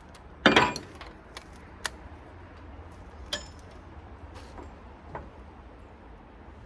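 Metal hand tools and parts clinking and knocking as they are handled. One sharp knock about half a second in is the loudest, followed by a few lighter, scattered clicks.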